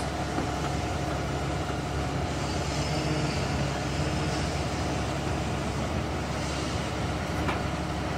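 Steady hum of vehicle engines running, even throughout, with no sudden events.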